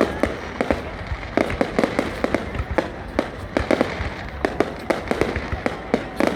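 Fireworks going off: a rapid, irregular string of sharp bangs and cracks, several a second, over a continuous crackling hiss.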